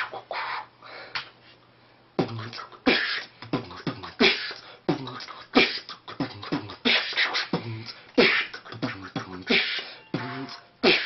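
A person beatboxing: a few scattered mouth clicks, then about two seconds in a steady beat of hummed bass kicks and hissing snare and hi-hat sounds.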